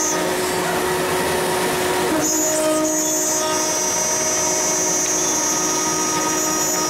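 CNC router spindle running with its end mill cutting into aluminium plate: a steady high whine over cutting noise. About two seconds in, a stronger, higher whine sets in and holds.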